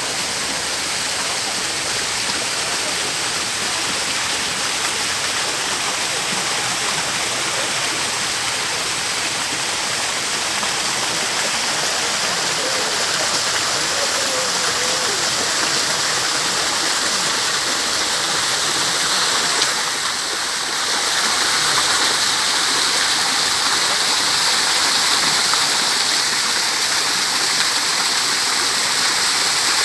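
Waterfall: a steady, even rush of falling water, getting a little louder partway through.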